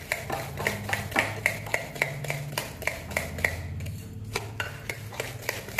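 A spoon beating ghee and brown sugar in a glass mixing bowl, clinking against the glass about three to four times a second, then slowing to a few scattered clinks over the last couple of seconds.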